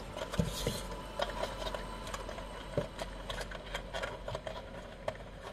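Fingers picking and scratching at a cardboard toy-car box and the die-cast car inside: scattered light clicks and scrapes, a brief rustle about half a second in and a few soft knocks.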